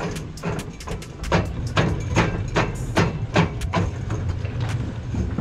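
Diesel engine idling under a run of sharp, evenly spaced knocks, about two or three a second.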